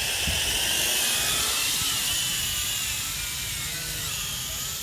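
Ei-Hi S900R quadcopter drone's motors and propellers running: a steady high whine whose pitch wavers and sags slightly partway through.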